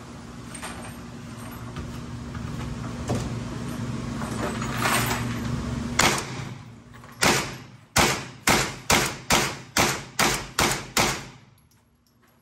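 Hi-Point 995 9mm carbine firing: one shot about halfway through, then about ten more in quick succession, two to three a second. A steady hum runs under the first half.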